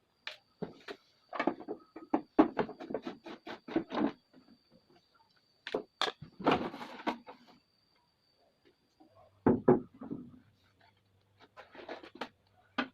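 Irregular knocks, taps and clatter of a CRT television's plastic casing and tools being handled as the set is opened, with a quick run of taps about two to four seconds in and louder single knocks near the middle and the end. A faint high steady tone sounds through the first half, and a low hum comes in about nine seconds in.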